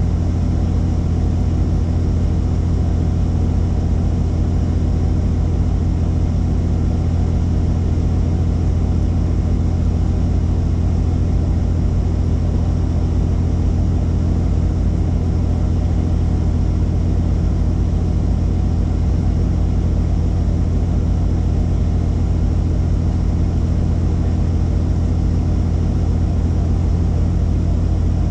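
Helicopter engine and rotor running steadily: a loud, even, low drone with no change in pitch or level.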